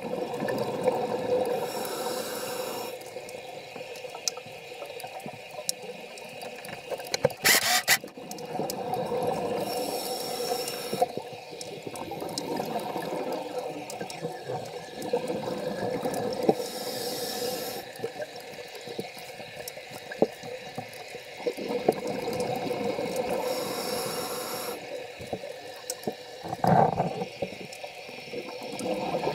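Scuba diver breathing through a regulator underwater: a hiss as each breath is drawn, then a rush of exhaust bubbles, the cycle coming round every several seconds.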